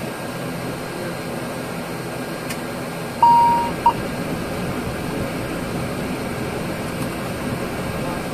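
Steady hum of an ATR 72-600 aircraft. Just over three seconds in, a single electronic beep sounds for about half a second, followed by a short blip of the same tone.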